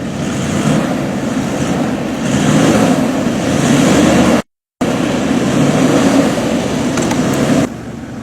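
Toyota LandCruiser 4.5 L V8 running off-road, its engine under a steady rushing noise. The sound cuts out for a moment just before halfway and drops sharply in level near the end.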